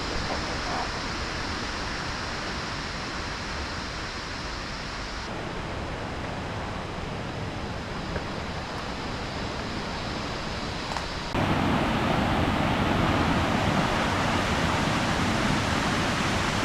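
Waterfall rushing as a steady roar of falling water. It steps up abruptly and gets louder about eleven seconds in.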